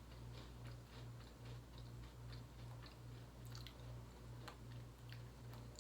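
Faint chewing: soft mouth clicks and crunches of someone eating, a few a second, over a steady low hum.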